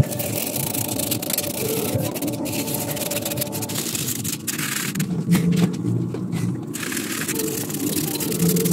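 A stiff hand brush scrubbing back and forth over the dry dead wood of a privet bonsai trunk, scraping off old lime-sulfur-treated and charred wood. A low hum joins in about halfway through, for a second or two.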